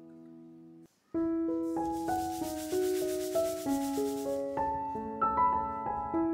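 Background piano music: a held chord ends, there is a brief silence, and a new piano piece begins just after a second in. A scratchy rubbing noise sits under the music for about two and a half seconds in the middle.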